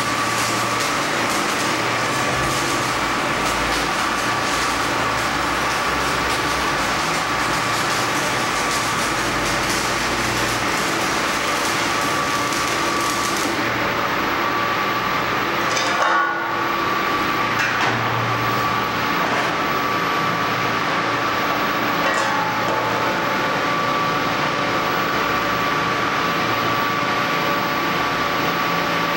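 Stick (SMAW) arc welding with a 600 A welding rectifier: the electrode arc crackles and sizzles steadily, then stops about 13 seconds in. A steady machine hum with a constant tone carries on throughout, with a single knock about 16 seconds in.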